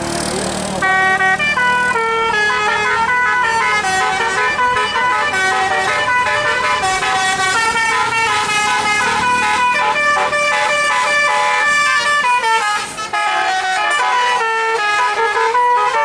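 Tour bus's telolet musical air horn playing a quick stepping tune of several notes sounding together, starting about a second in, with a short break near the end.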